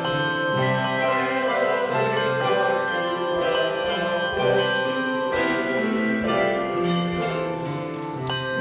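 Handbell choir playing a piece: several bells ring together in sustained chords, with new notes struck about every second.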